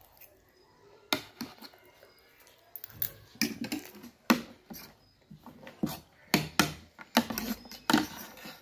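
Metal fork and spoon clinking and scraping against a plate of noodles, mixed with chewing and mouth sounds. The sharp clicks begin about a second in and come irregularly.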